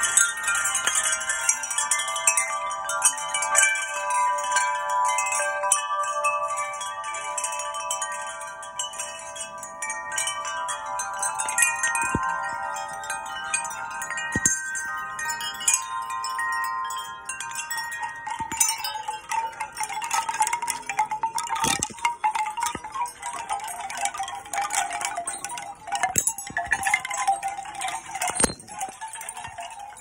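Many hanging metal tube wind chimes ringing together as a hand sets them swinging, with many overlapping sustained tones. From a little past the middle the ringing gives way to a busier clatter of knocks, as bamboo chimes are set knocking together.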